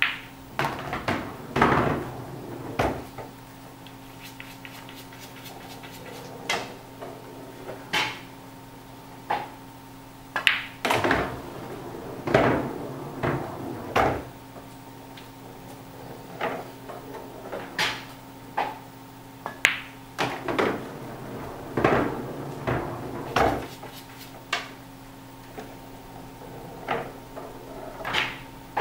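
Pool balls on a billiard table: a cue tip striking the cue ball, balls clacking into each other and dropping into pockets, about two dozen sharp knocks at uneven intervals, some in quick clusters. A steady low hum runs underneath.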